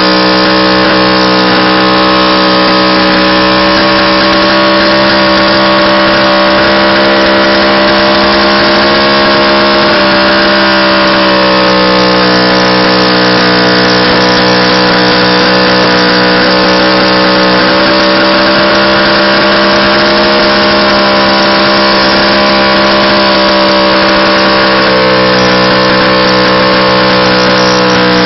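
Motorcycle engine held at high, steady revs through a burnout, with the rear tyre spinning and smoking against the ground. The loud, even drone holds one pitch, dipping briefly about ten seconds in and again about twenty seconds in.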